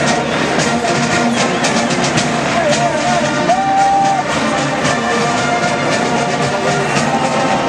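Military marching band playing brass and drums with a steady beat, heard across a large open-air stadium.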